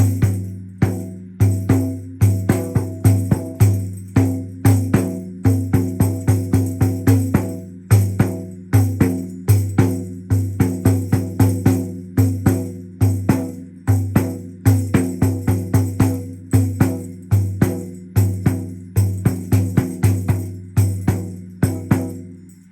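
Hand-held drum struck repeatedly in a quick, uneven rhythm of about two to three strokes a second, each stroke leaving a low pitched ring that carries under the next. The playing stops just before the end.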